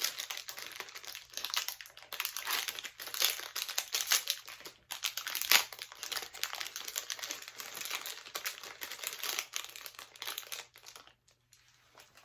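Crinkly plastic packaging being handled and pulled open, a dense irregular crackling that stops about eleven seconds in.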